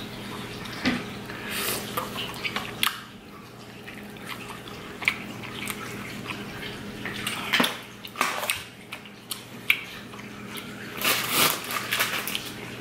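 Close-up eating sounds of mussels being eaten by hand: wet smacking, chewing and slurping in irregular bursts, loudest near the end. Under them runs the steady trickle of an aquarium filter.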